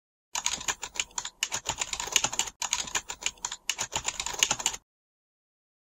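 Computer keyboard typing sound effect: rapid, irregular key clicks for about four and a half seconds, with a brief break midway. It accompanies text appearing on screen.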